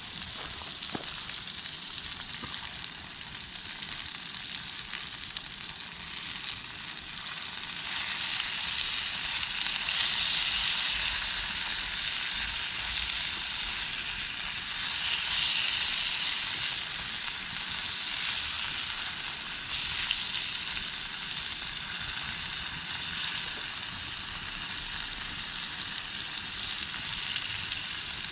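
Formed meat sizzling over a campfire: a steady hissing sizzle that grows louder about eight seconds in and swells again around fifteen seconds.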